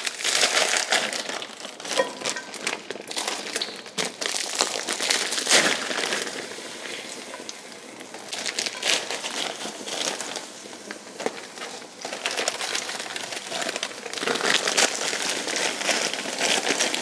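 Plastic freezer bags crinkling and rustling in irregular bursts as frozen diced onions and peppers are shaken out of them into a pan.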